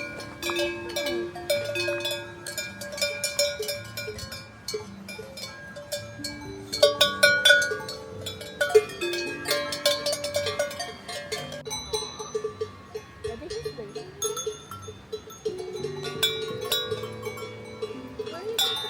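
Several cowbells on a herd of cows clanking irregularly, bells of different pitches ringing over one another, with a louder flurry of clangs about halfway through.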